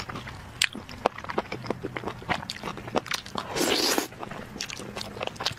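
Close-miked eating: a person chewing grilled skewered food, with many small wet clicks and smacks of the mouth, and one louder, longer noisy smack about three and a half seconds in as a piece is taken into the mouth.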